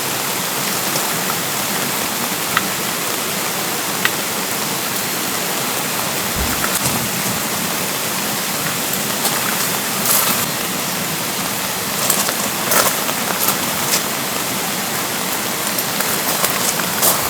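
Steady spring rain falling, with the rush of a mountain stream beneath it. Single drops tap sharply a couple of times early on, and heavier drops land in clusters of taps from about ten seconds in.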